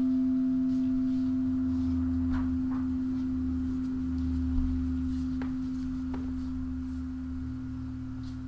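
Singing bowl ringing with one strong steady tone after being struck, slowly fading, its fainter higher overtones dying away about two seconds in.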